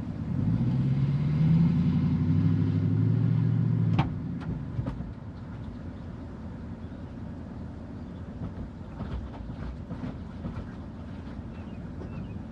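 Motor vehicle engine running, rising in pitch as it accelerates, then cutting off abruptly with a click about four seconds in. A quieter low rumble with scattered clicks follows.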